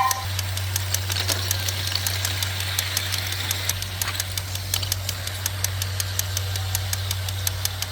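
Small DC motor of a homemade toy train running: a steady low hum with regular clicking, about five clicks a second.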